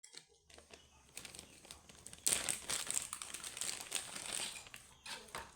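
Packaging around a new toy excavator crinkling and rustling as it is handled and opened, with a dense, louder stretch of crackling in the middle.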